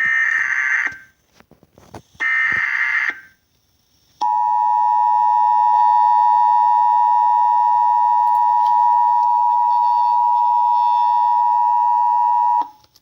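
Emergency Alert System tornado warning. Two harsh one-second bursts of the SAME digital header data play, then a short gap. Then the steady two-tone EAS attention signal (853 and 960 Hz) sounds for about eight seconds and cuts off near the end.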